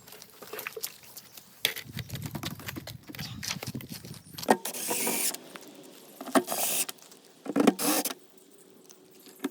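Hand tools scraping and knocking while material is spread and smoothed around a septic tank riser: many small knocks, then several short harsh scrapes in the second half.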